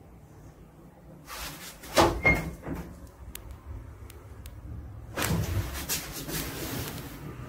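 Lift doors moving: a metallic bang with a second knock about two seconds in, then a longer sliding rattle with knocks from about five seconds in.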